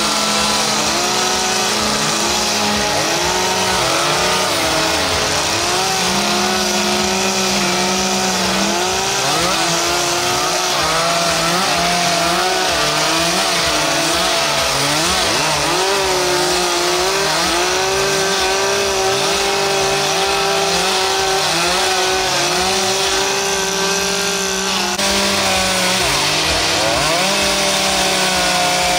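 Several chainsaws running at once, their engines revving up and dropping back again and again as they cut into wood.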